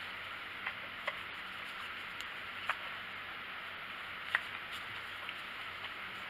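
A few faint, scattered clicks and taps of a hand tool on the plastic air cleaner cover of a Stihl 290 chainsaw as its two screws are undone, the sharpest about four seconds in, over a steady hiss.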